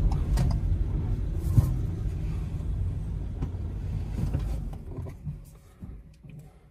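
Low rumble of a road vehicle on the move, heard from inside, with a few faint clicks; the rumble fades away over the last two seconds.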